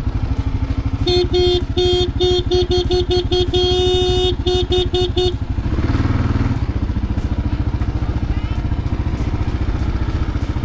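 Kawasaki KLR650's single-cylinder engine idling with an even pulse. From about a second in, the motorcycle's horn is tapped in a quick run of about fifteen short beeps, one held for nearly a second, stopping about halfway through.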